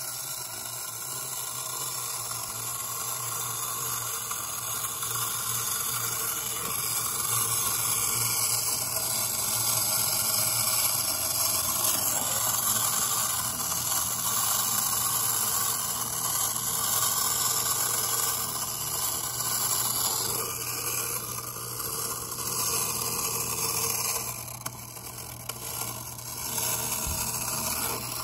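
Clockwork motor of a Chinese tin wind-up snail toy running with a steady whirr and rattle, becoming uneven in the last few seconds.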